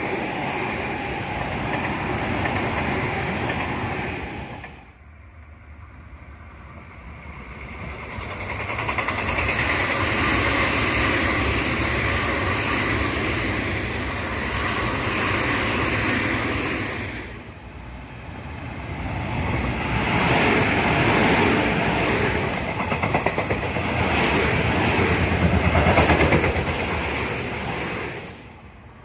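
Tobu Tojo Line electric trains passing, with the noise of running gear and wheels on rail. The sound drops about 5 seconds in and again a little past the middle, then swells as the next train comes through. Near the end there is a fast run of wheel clacks over rail joints.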